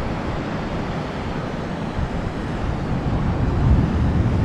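Steady rumbling noise of wind on the microphone and surf washing on the shore, swelling briefly about three and a half seconds in.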